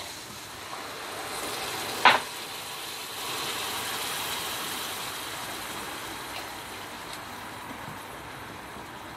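Water poured into a hot pan of fried rice and lamb liver, sizzling and bubbling as it hits the hot fat, with a sharp knock about two seconds in. The sizzle builds and then eases as the water settles.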